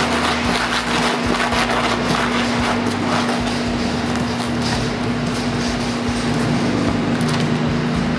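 Steady street noise, like traffic, with a constant low hum running under it.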